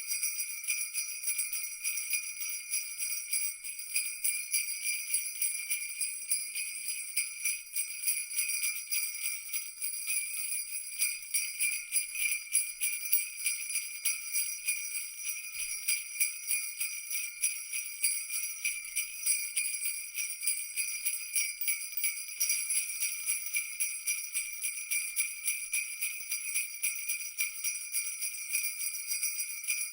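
Jingle bells shaken continuously in a dense, rapid jingle, a steady high ringing with no pauses.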